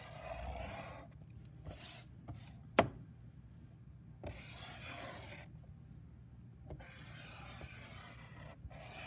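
Marker tip rubbing across paper in several separate strokes as it traces around a roll of painter's tape, with one sharp tap about three seconds in.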